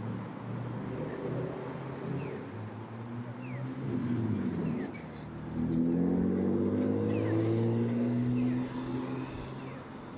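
City street traffic: motor vehicle engines running close by, with one vehicle accelerating loudly for about three seconds from around the middle.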